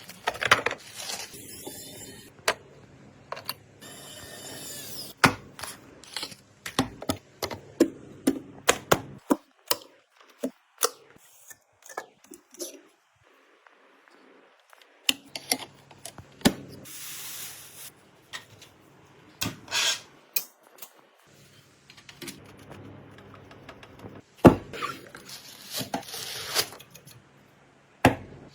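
Computer parts being handled and fitted together: irregular sharp clicks, taps and knocks mixed with stretches of rustling and scraping, with a quieter spell in the middle.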